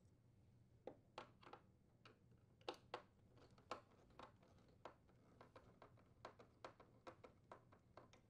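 Faint, irregular clicks and ticks of a Phillips screwdriver turning out the screws that hold a refrigerator's ice chute.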